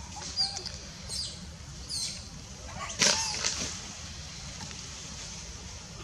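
Monkeys making short, high-pitched squeaks several times in the first three and a half seconds, some falling in pitch, the loudest about three seconds in.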